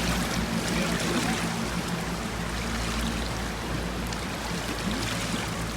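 Steady rushing wash of floodwater and heavy rain. A low steady hum runs under it for the first half and drops out about three seconds in.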